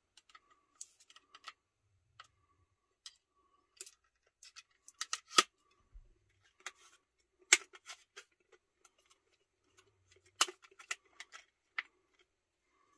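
Small clicks and crinkles of a stiff plastic insert being worked off the tracks of a diecast metal model, irregular, with a few sharper clicks about five, seven and a half and ten and a half seconds in.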